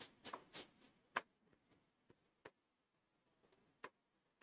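Faint taps and short strokes of a marker pen writing on a board: three quick clicks in the first second, then single taps at intervals of a second or more.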